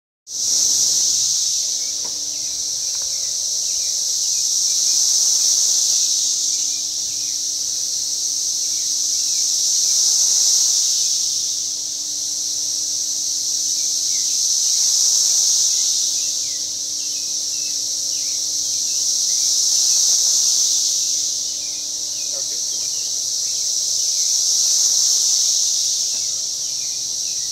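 Dense chorus of cicadas, a loud high buzzing drone that swells and fades in slow waves about every five seconds.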